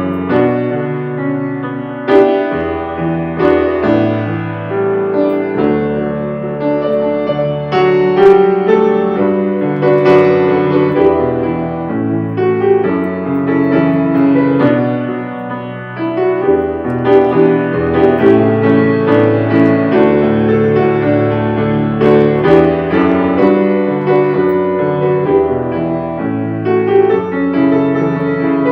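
Piano playing an instrumental piece of sustained chords over changing bass notes.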